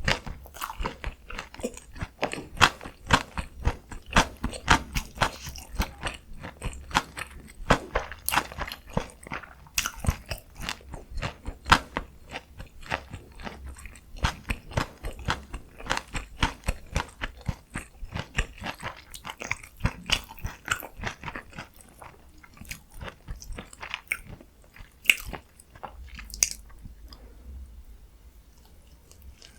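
Close-miked eating sounds: quick, irregular chewing and biting with crunchy, wet mouth clicks, thinning out over the last few seconds.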